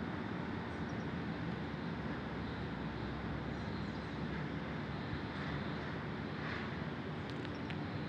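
Steady city din of distant traffic, an even rumbling hum with a few faint high chirps now and then and some light ticks near the end.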